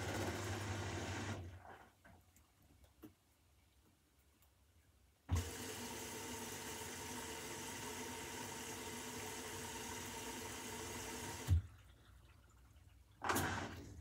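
Beko front-loading washing machine drawing in water through its inlet valve at the start of a cycle: a steady rush of water that stops about a second and a half in, starts again with a clunk about five seconds in, runs for about six seconds and shuts off with a clunk, then a short burst near the end.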